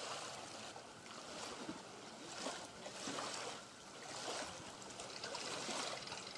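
Faint small lake waves lapping against shoreline rocks, a soft rushing wash that swells and ebbs irregularly about once a second.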